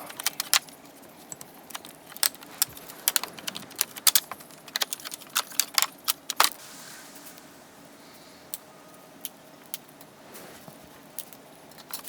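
A series of sharp, irregular small clicks and taps, dense for the first six seconds or so and then sparse.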